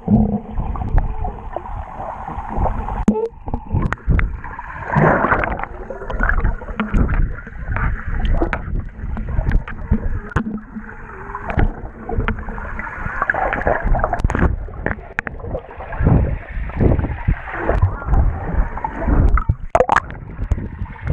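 Water sloshing and gurgling around a waterproof camera as it is carried through the water among swimmers, with splashes and frequent sharp knocks.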